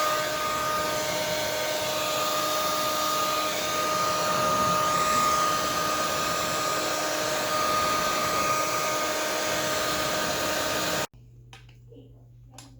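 Hair dryer blowing steadily on high, a whirring rush with a steady whine in it, heating the bike frame's head tube so the chilled headset cup will slide in. It cuts off abruptly about eleven seconds in.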